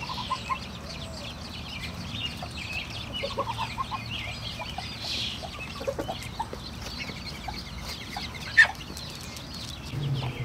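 A brood of ducklings peeping constantly, many short high calls overlapping, with a few lower, softer calls now and then. A single sharp click comes about eight and a half seconds in.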